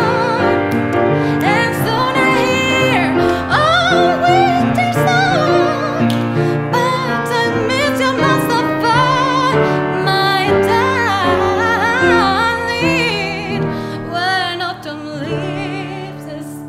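Soprano singing operatically with a wide vibrato, accompanied by a grand piano; the music grows quieter near the end.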